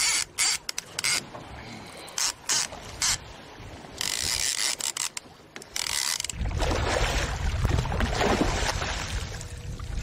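Fishing reel being cranked while fighting a hooked cobia, ratcheting in short bursts over the first few seconds, with a longer run about four seconds in. About six seconds in, a steady low rumble and rushing water noise take over.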